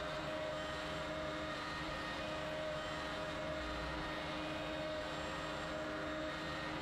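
A Shapeoko CNC router's spindle router running at speed and cutting into an MDF sheet as the gantry moves: a steady whine with a hiss of cutting, unbroken throughout.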